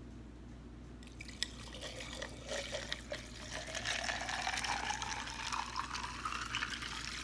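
Water poured from a plastic bottle into a glass jar full of ice, splashing and trickling, its pitch rising steadily as the jar fills.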